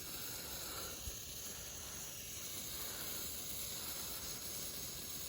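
A burning sparkler giving a steady fizzing hiss, with a steady high insect trill from crickets behind it.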